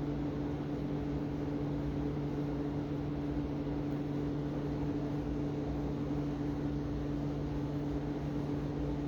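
A steady mechanical hum: an even hiss with a constant low drone that does not change.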